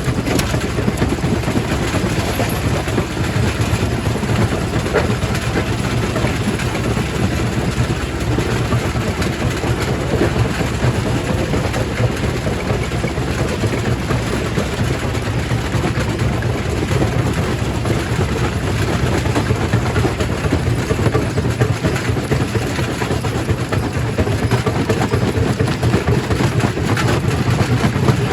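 Primary rock crusher running: a steady heavy rumble with continuous rattling and clatter of stone being crushed.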